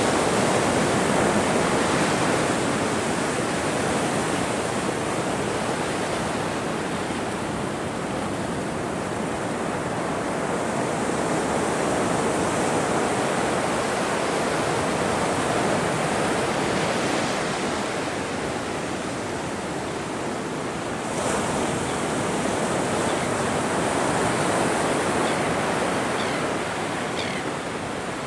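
Ocean surf washing ashore, a continuous rush that swells and eases as the waves come in. A few short high bird chirps sound near the end.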